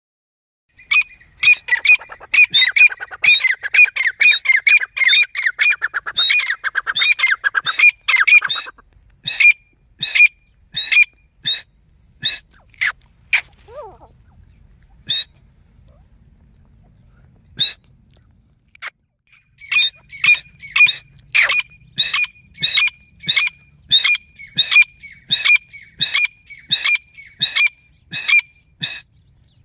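Grey francolin (teetar) hen calling with sharp, high-pitched repeated notes: a fast run of several notes a second at first, then spaced single notes with a pause, and then a steady series of about one and a half notes a second.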